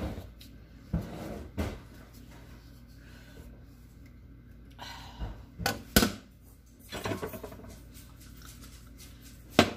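Dough being worked with a metal bench scraper on a silicone pastry mat: irregular scrapes and short knocks as the scraper lifts and folds the dough, the sharpest knock about six seconds in and another near the end.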